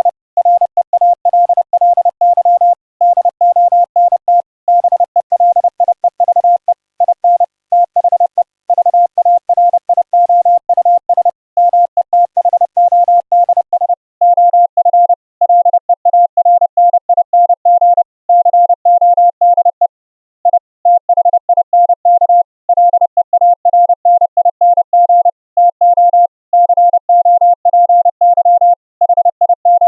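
Morse code (CW) tone of about 700 Hz keyed on and off at a steady sending speed, received as audio over an internet WebRTC link. A faint hiss under the tone drops away about halfway through, leaving a clean tone, as when the CW regeneration filter is switched in.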